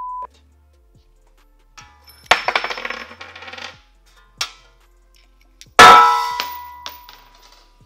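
A short steady beep, then a metallic jingle and clatter for about a second. A little past the middle comes one loud metallic clang that rings on and fades out over about a second and a half.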